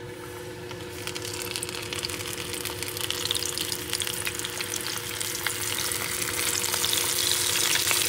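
Small bullfrog frying in a pan: a steady crackling sizzle that grows slowly louder, with a faint steady hum beneath it.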